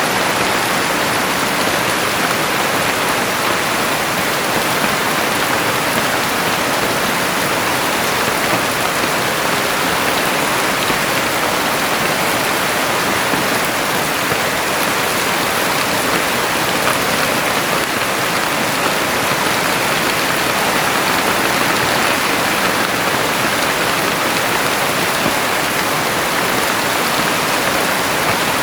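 Heavy rain falling steadily, a dense even hiss of many drops with no breaks.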